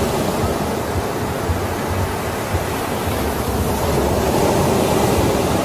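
Ocean surf: a steady, unbroken wash of waves.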